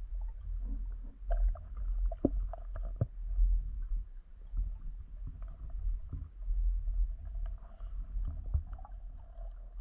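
Muffled underwater sound of water moving around the camera: an uneven low rumble with scattered small clicks and knocks.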